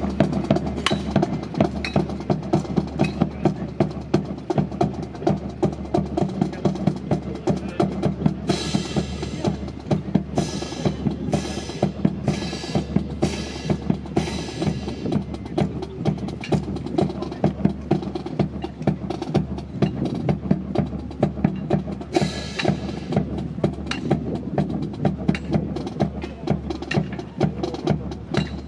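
Marching drums beating a steady, fast cadence of snare and bass drum to accompany a military drill team, with a run of cymbal crashes about a third of the way in and another near the three-quarter mark.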